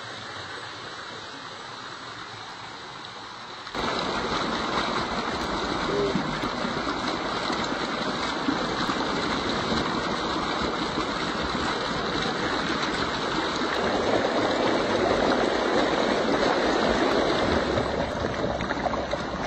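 Shallow stream water rushing and splashing over rocks, a steady hiss that jumps suddenly louder about four seconds in and swells again in the last few seconds.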